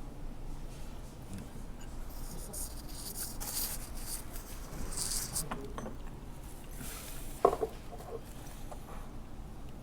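A plastic food packet, the kind that holds seasoned nori, crinkling and rustling as it is handled and opened. About seven and a half seconds in comes one sharp clack of tableware.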